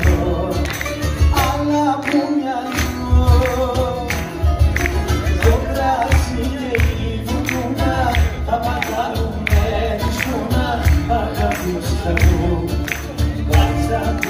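Live Greek music played by a small acoustic band: acoustic guitars and a long-necked lute over a steady drum beat, with singing.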